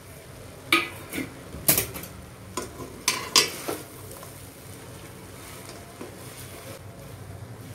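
A metal spatula scraping and knocking against a metal kadai while stirring sticky vermicelli kesari. Five or six sharp scrapes and clanks come in the first three and a half seconds, then quieter stirring over a faint steady hiss.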